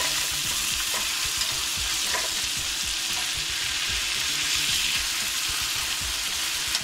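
Chicken wings deep-frying in hot oil in a cast iron skillet: a steady, even sizzle.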